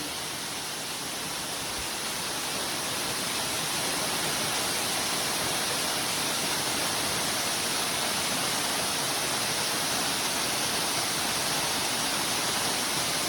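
Steady rushing roar of a waterfall, growing a little louder a few seconds in and then holding even.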